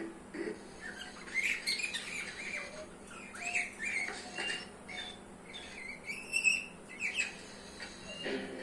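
Budgerigars chirping and warbling in a run of short, quick notes, with a louder call about six and a half seconds in.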